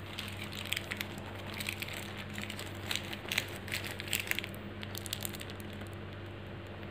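Plastic piping bag crinkling and crackling as it is handled and squeezed: a run of small crackles that stops about four and a half seconds in, over a steady low hum.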